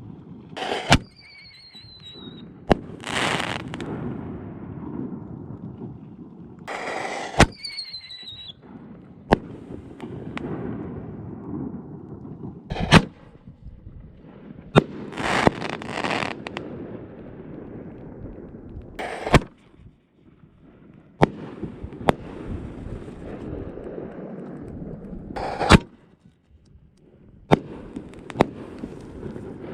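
Winda Tank Busters canister shells firing and breaking: a string of about a dozen sharp bangs at uneven intervals, some followed by a second or so of crackling hiss, and twice a short falling whistle.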